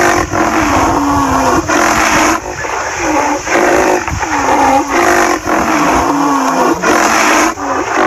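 Rhinoceros calf calling over and over with high, wavering squeals, each about a second long, over a steady rushing noise.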